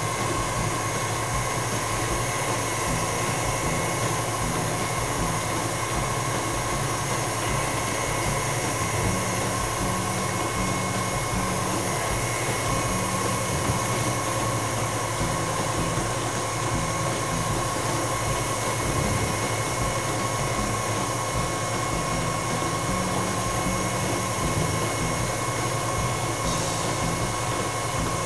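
KitchenAid Ultra Power stand mixer running steadily, its motor giving an even hum with a steady whine, as it beats a thin cake batter while nut flour is added.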